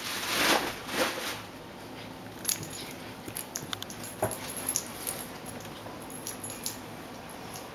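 An Italian Greyhound and a Bengal cat play-fighting on carpet. There are two loud scuffling rushes in the first second or so, then scattered light clicks and ticks as they dart about.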